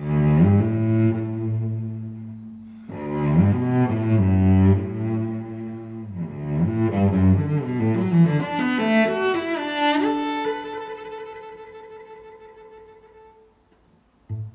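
Background music: bowed strings playing a slow melody in phrases, ending on a long held note that fades out near the end.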